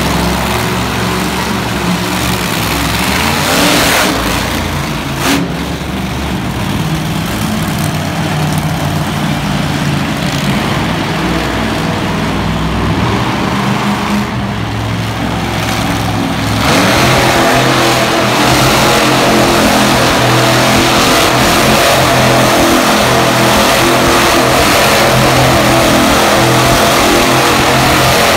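Monster truck engine revving hard as the truck spins donuts on the arena's dirt floor, getting louder a little past halfway through.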